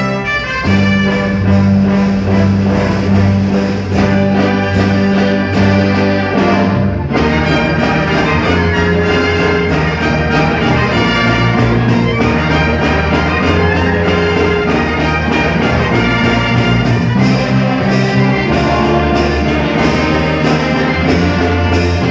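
Brass band playing a tune, with trumpets and other brass over a strong bass line and a steady drum beat; the sound grows fuller about seven seconds in.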